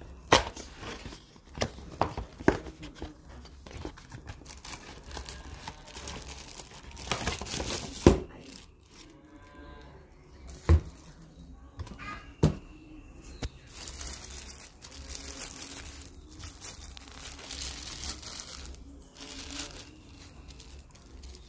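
Cardboard box being handled and opened, with several sharp knocks and taps, then a thin plastic bag around a water bottle crinkling and rustling as it is pulled off.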